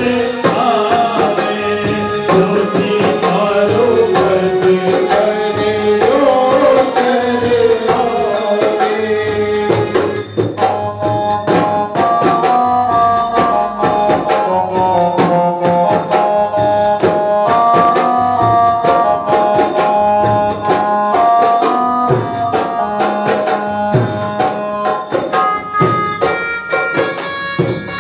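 Indian folk song music with a steady, regular percussion beat. A gliding, wavering melody line for about the first ten seconds gives way to held, steady notes from a melodic instrument.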